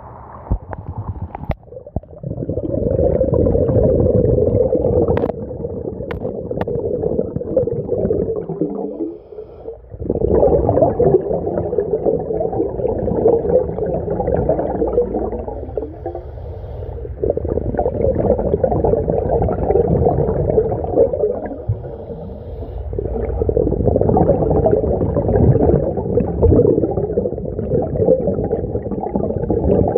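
Underwater breathing through a mini scuba tank's regulator: about four long, bubbling rushes of exhaled air, each a few seconds long, with short quieter pauses between breaths.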